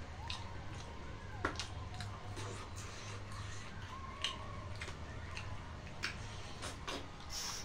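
Two people eating rice and pork with their fingers: scattered mouth clicks and lip smacks from chewing, over a low steady hum.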